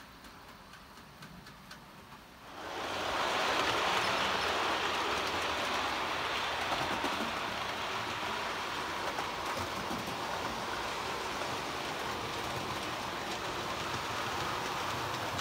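OO gauge model trains running past close by on the layout's track: a steady rolling rush of small metal wheels on rail that starts suddenly about two and a half seconds in. Near the end the passing train is a rake of Accurascale CEMFLO cement wagons.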